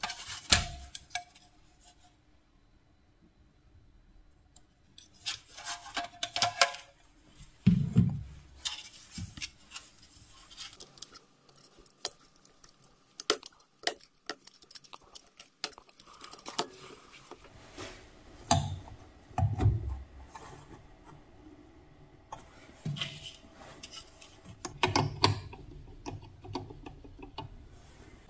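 Handling noise from a Pioneer car speaker grille being worked by hand: scattered clicks, taps and rattles of its plastic ring and mesh, with a few low thumps.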